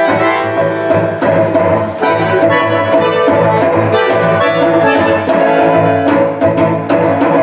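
Bandoneon and cello playing a new-tango piece together: sustained chords from the bandoneon over a moving cello line, with sharp, accented note attacks.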